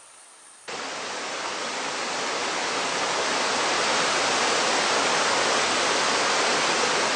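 Waterfall: the rush of falling water. It cuts in suddenly about a second in and grows louder over the next few seconds.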